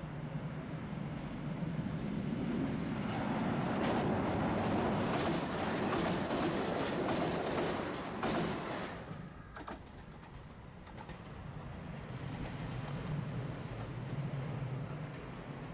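Diesel train on the Dosan Line passing close by: the noise of the wheels on the rails builds over a couple of seconds, stays loud for several seconds, and drops away sharply about nine seconds in, leaving a fainter low rumble with a few clicks.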